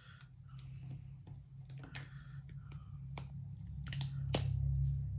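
Scattered small irregular clicks and handling noises of a NYX Shout Loud liquid lipstick tube being opened and handled, over a low steady hum that grows a little louder near the end.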